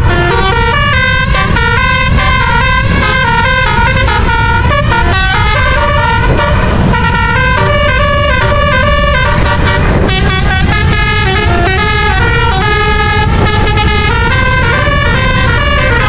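Bus telolet musical air horn with twelve roof-mounted trumpets playing a fast tune of short stepping notes, over a steady low rumble.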